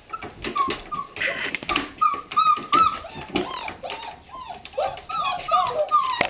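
Standard Poodle puppies whining: a quick run of short, high whines from several puppies at once, overlapping at different pitches.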